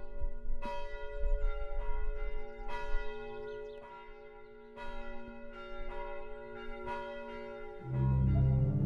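Church bells ringing, struck one after another at uneven intervals about every half second to second, each strike humming on in long overlapping tones. Near the end a low, sustained musical chord comes in under them.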